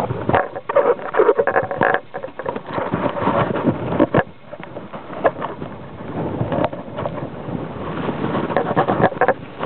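Wind buffeting an open-air camera microphone, broken by irregular knocks and rustles from the camera being handled.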